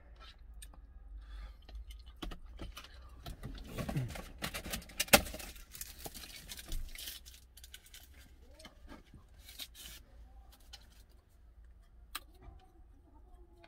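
Eating and handling noises from a paper cup of instant ramen: a utensil stirring and scraping in the cup and the cup being moved about, with scattered small clicks and rustles and one sharp click about five seconds in. A low steady hum runs underneath.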